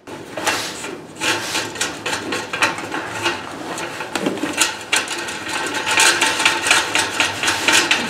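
Coil of thin copper tube being driven into a steel chimney pipe with a wooden stick: repeated irregular knocks, with copper scraping and rattling against the steel.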